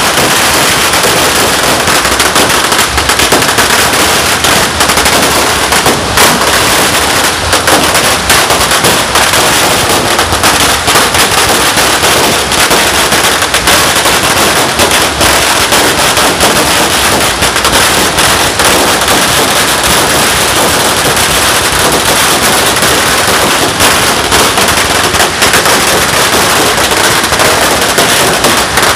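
Firecrackers and fireworks going off in a dense, unbroken crackle of countless rapid bangs, loud throughout.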